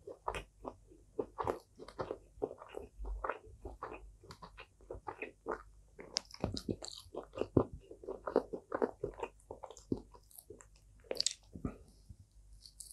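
Close-miked chewing of crispy pork: an irregular, rapid run of crunches with wet mouth sounds between them.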